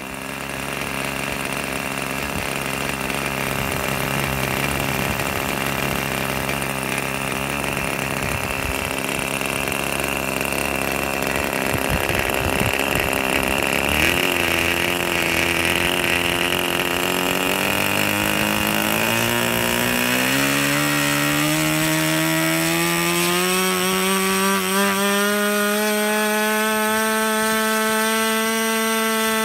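OS Max FP two-stroke model glow engine running on a test stand with its propeller. It runs unevenly at first, then speeds up steadily over the middle of the stretch and settles into a steady, higher-pitched buzz.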